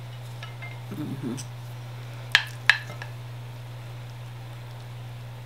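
Two sharp clinks of a spoon and fork against a plate, about a third of a second apart, over a steady low hum.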